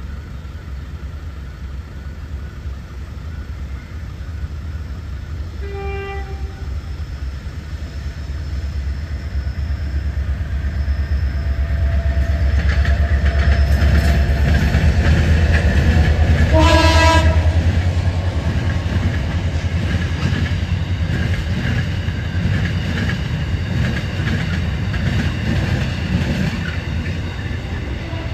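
'Super Clyde' diesel locomotives approaching and passing, their engines rumbling louder to a peak and then easing as the wagons roll by. The horn gives a short toot about six seconds in and a longer blast shortly after the midpoint.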